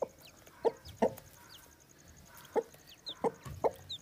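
Broody hen clucking in short, low calls, about six in the four seconds, while her newly hatched chicks peep in thin, high, falling notes.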